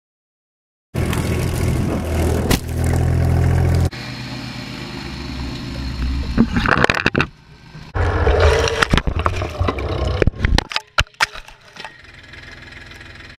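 A compact tractor's engine running close to the microphone, then branches cracking and scraping against the machine. Near the end comes a run of sharp knocks and clatter as the mounted camera is struck.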